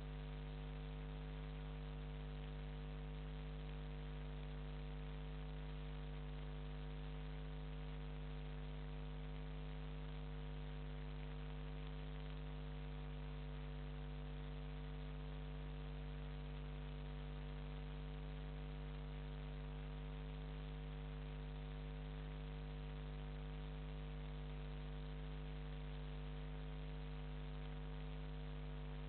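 Steady electrical mains hum with a layer of hiss, unchanging throughout: interference in the webcam's own audio.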